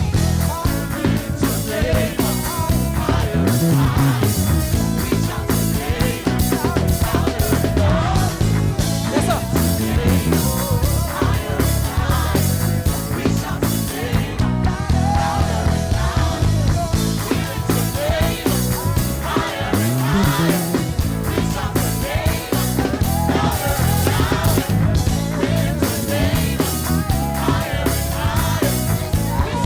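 Live gospel praise band playing an up-tempo medley with a strong bass guitar line, drums and guitar, with singing over the band.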